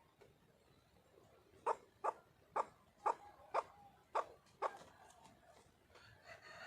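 Junglefowl hen calling: a run of seven short, sharp notes about two a second, starting about two seconds in, then a longer call with several tones near the end. These are the calls of a wild hen seeking a mate.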